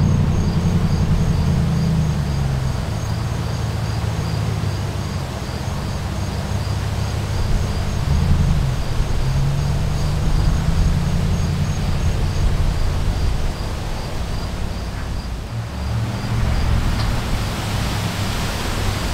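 Gusty wind buffeting the microphone, an uneven low rumble, as a cold front's breeze picks up. Behind it, insects chirp in a steady pulsing rhythm that fades out in the second half. Near the end the hiss of wind-tossed tree leaves grows louder.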